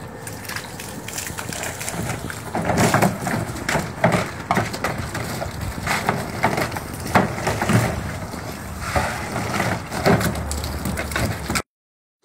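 Water from a garden hose spraying and splashing as a dog bites and chomps at the stream, with many irregular sharp splashes.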